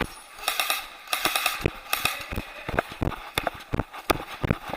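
Footsteps of a player walking over rough ground, a quick uneven run of sharp crunches and knocks.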